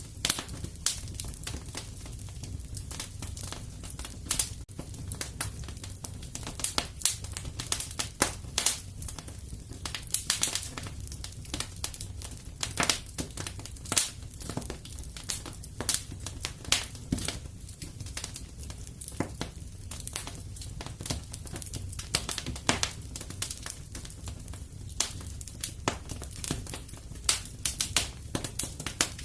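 Wood fire in a fireplace crackling: frequent irregular sharp pops and snaps over a steady low rumble of the flames.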